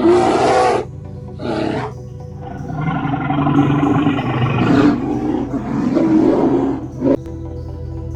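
Loud animal calls over steady background music: a short call at the start, another about a second and a half in, then a long drawn-out call lasting several seconds and a brief one near the end.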